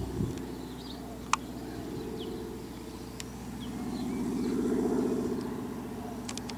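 Propeller aircraft flying overhead, its piston engine droning steadily and growing louder past the midpoint before easing off. Faint bird chirps and a few sharp clicks.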